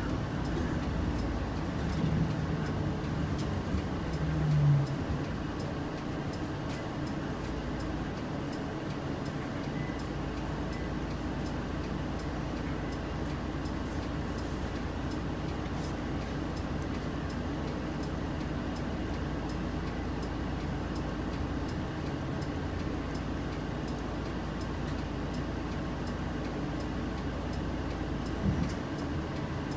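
City bus engine idling, heard from inside the cabin at the front as a steady low hum. A short rise in engine note comes about two to five seconds in. A faint regular ticking runs under it.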